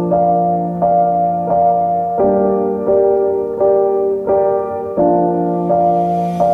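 Background music: a slow piano melody, one note struck about every 0.7 seconds over a held bass note.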